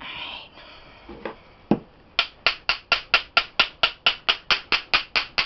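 A metal spoon tapping a metal bath bomb mould to knock the packed fizzy loose. A couple of single knocks come first, then from about two seconds in a fast, even run of sharp ringing clinks, about four or five a second.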